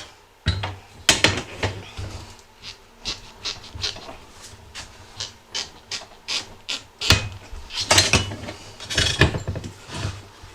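Harbor Freight manual tire changer's bead breaker being worked against an ATV tire bead stuck on the rim, making a run of irregular metallic clicks and clanks, several loud knocks among them.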